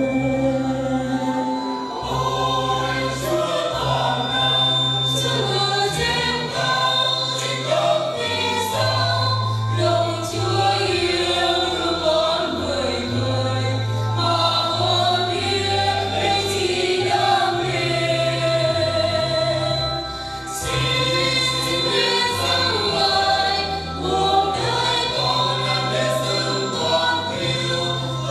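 Church choir singing a Vietnamese Catholic offertory hymn over a keyboard accompaniment with held bass notes.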